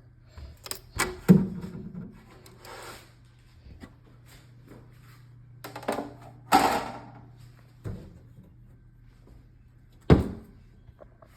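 Irregular clacks, clicks and knocks of hard objects being handled, three of them louder (about a second in, midway and near the end), over a faint steady low hum.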